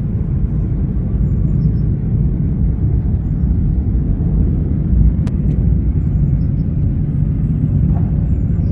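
A steady, loud low rumble, like a field recording of a distant engine or traffic drone, with a faint click about five seconds in.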